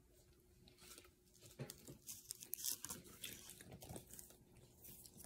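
Faint eating sounds: chewing and a few soft, scattered clicks and scrapes of a fork working into frozen ice cream cake.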